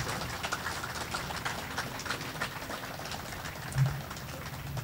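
Small crowd applauding, a steady patter of scattered claps over a low rumble, with one dull bump about four seconds in.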